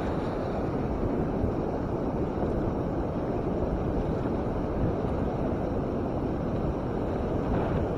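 Ocean surf breaking and washing up the beach, a steady rushing noise, with wind buffeting the microphone.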